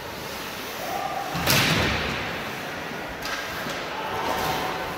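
One loud thud about one and a half seconds in, echoing in a gymnasium, followed by a few fainter knocks.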